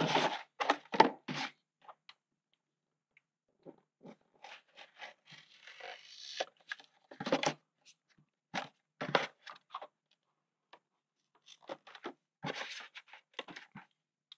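Utility knife cutting thin single-use plastic: short crackling, scraping strokes in irregular clusters, with pauses between.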